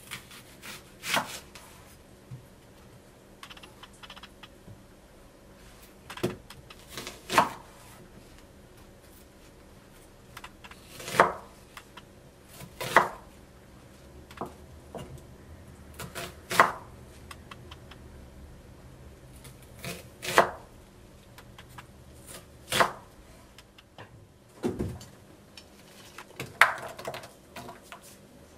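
Kitchen knife cutting an onion on a wooden cutting board: single sharp chops, spaced a second to a few seconds apart. Near the end, pieces land in a stainless steel pot.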